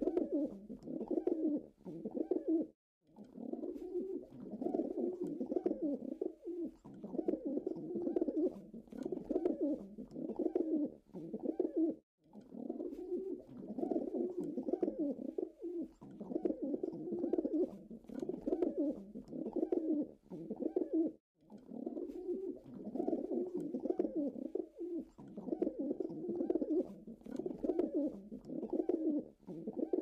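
Domestic pigeons cooing continuously, several birds overlapping, with a muffled, low sound. The cooing briefly stops three times, about nine seconds apart.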